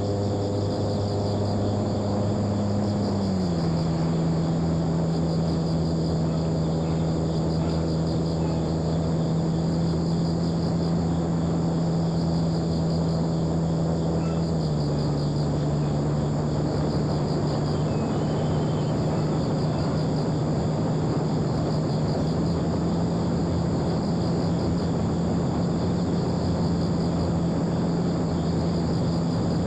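Electric motor and propeller of a homemade foam RC airplane in flight, a steady hum. Its pitch drops about three seconds in and again about halfway through as the motor slows, then rises slightly.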